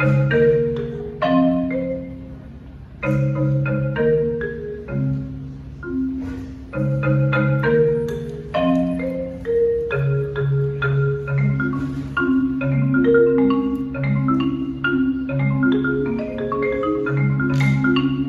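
Marimba being played with mallets: struck notes ringing across the low and middle range, often two or more together, with the low notes held by rapid rolls.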